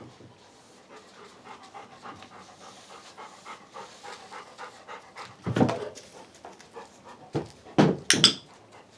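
A dog panting, about three breaths a second. Then comes a loud knock, followed by a quick run of four more loud knocks near the end.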